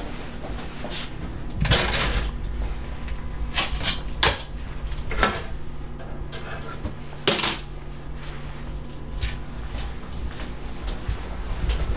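A plate and kitchen items being handled on a tiled countertop: a handful of separate sharp clinks and clatters, the longest about two seconds in, over a steady low hum.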